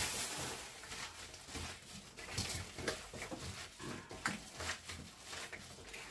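Gloved hands mixing seasoned kimchi in a stainless steel bowl: irregular rustling and crinkling of plastic gloves and a plastic bag with wet squishing of the vegetables.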